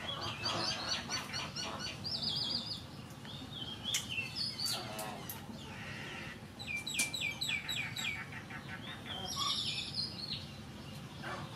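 Small birds chirping in quick runs of repeated high notes, several runs one after another. A few sharp clicks come through as scissors snip the river prawns.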